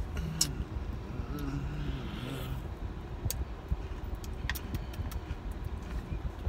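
Someone eating an ice cream cone: a few short, sharp crunching clicks over the steady low rumble of a car interior. A low voice murmurs briefly in the first couple of seconds.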